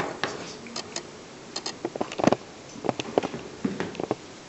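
Handling noise: a run of irregular clicks and light knocks, the loudest a little over two seconds in.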